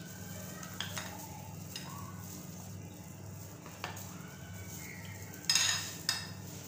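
A utensil beating a mixture in a bowl, clinking against the side a few times, with two louder scraping strokes near the end.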